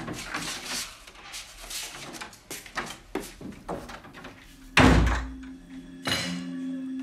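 A wooden interior door slammed shut about five seconds in, one hard bang. Before it come scattered knocks and shuffling of someone moving about.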